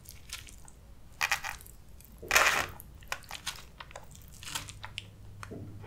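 Metal fork scraping and clicking in a foam takeout container while scooping up enchiladas and rice: a handful of short scrapes and clicks, the longest and loudest about two and a half seconds in.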